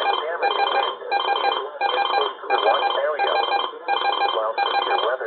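Electronic emergency alert tone beeping in a steady repeating pattern, about one beep every 0.7 seconds.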